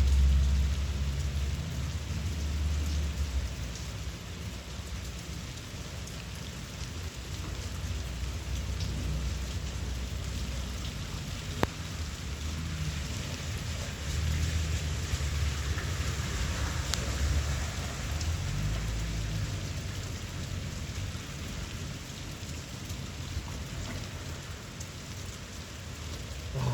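Steady rain falling, with low rumbles swelling at the start and again about halfway through, and one sharp tap near the middle.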